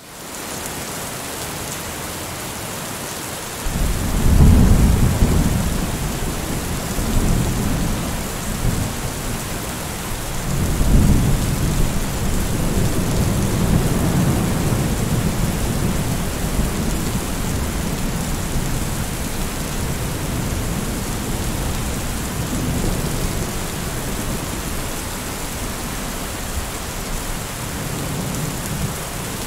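Rain hissing steadily, with rolling thunder. A low rumble comes in about four seconds in, swells again around eleven seconds and keeps grumbling under the rain.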